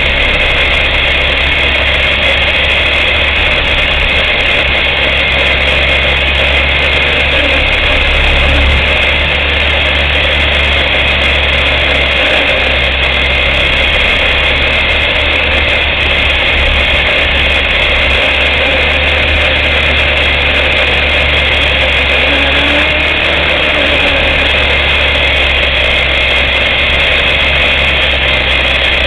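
Electric motors and propellers of a small radio-controlled aircraft, heard through its onboard camera's microphone: a loud, steady whine and drone with no breaks as it lifts off the grass and climbs.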